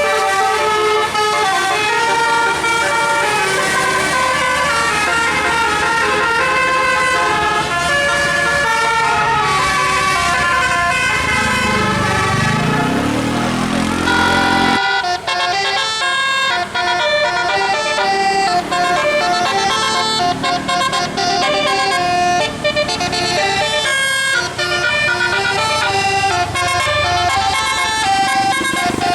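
Basuri 'telolet' multi-tone musical air horn on a bus, its roof-mounted trumpets playing a quick tune of changing horn notes. About halfway through, the sound cuts abruptly to another stretch of horn tune.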